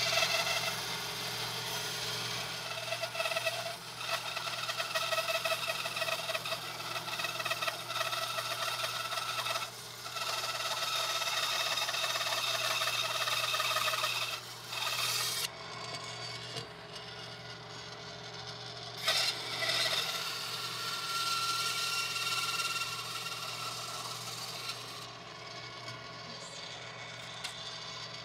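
Benchtop bandsaw running, its blade cutting through a 5/4 PVC trim board. A steady motor hum runs underneath, and the cutting noise drops out briefly a few times as the board is repositioned between cuts.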